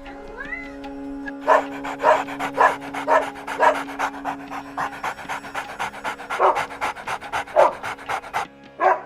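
A dog panting in a quick, steady rhythm over background music, starting about a second and a half in and stopping shortly before the end.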